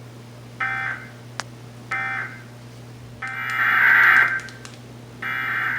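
Emergency Alert System SAME digital data bursts, harsh two-tone warbling buzzes. Two short bursts come about a second apart, the end-of-message code closing one test, then longer, louder bursts about two seconds apart, the header of the next test. There is a single faint click about a second and a half in.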